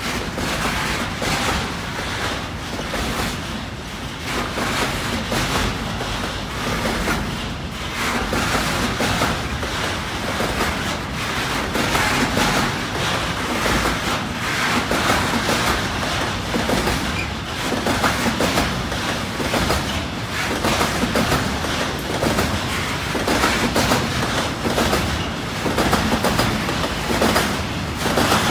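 Freight train wagons rolling past, a steady rumble with the repeated knock of wheels over rail joints.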